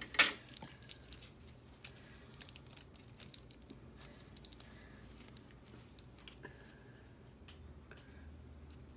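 Faint clicks and rustles of fingers handling a small plastic Power Rangers mini figure, working its removable helmet, with one sharper click just after the start.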